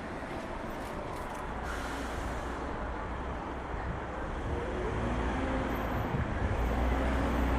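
City street traffic noise: a steady wash of passing road vehicles, with a low engine rumble growing louder near the end.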